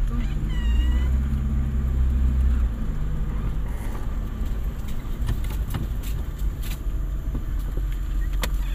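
Road and engine noise inside a moving car: a steady low rumble.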